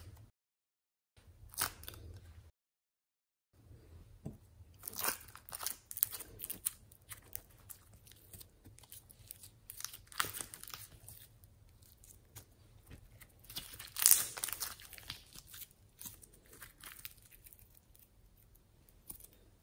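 Hands squeezing and pulling at a foam squishy toy: an irregular run of crunches and crackles, loudest about fourteen seconds in. The sound cuts out completely twice near the start.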